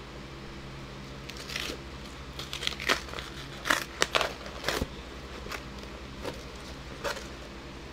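A cardboard mailer being opened by hand: scattered crackles and rustles of cardboard and paper packaging.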